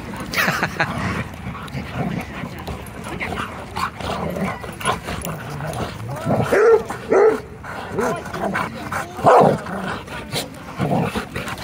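Dogs play-fighting, giving short barks, yips and growls as they wrestle. The loudest calls come in a cluster about six to seven seconds in and again around nine seconds.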